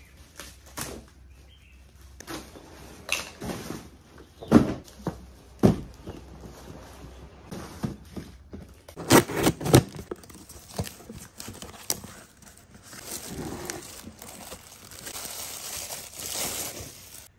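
Parcel unpacking: scissors cutting into a plastic mailer bag, and cardboard boxes handled with irregular sharp knocks and scrapes. Plastic packaging crinkles steadily over the last few seconds.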